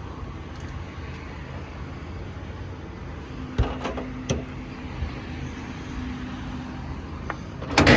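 Diesel truck engine idling steadily, with two light knocks in the middle and a louder clatter at the very end.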